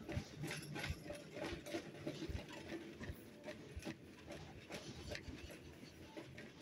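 Irregular clicks and knocks from a phone being carried and handled while walking, over a faint indoor shop background.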